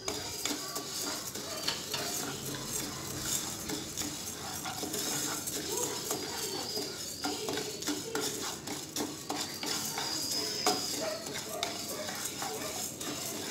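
Split dal and raw rice being dry-roasted without oil in a nonstick pan, stirred and scraped continuously with a wooden spatula. The dry grains give a steady run of small clicks and scraping against the pan.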